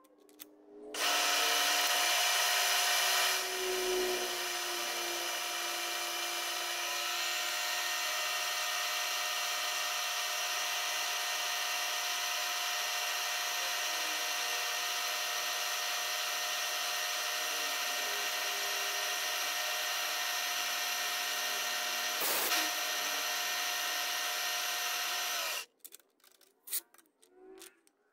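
Milling machine spindle starts about a second in and runs steadily with a whine while an end mill cuts a small metal part held in a collet block. It shuts off a few seconds before the end, leaving a few light handling clicks.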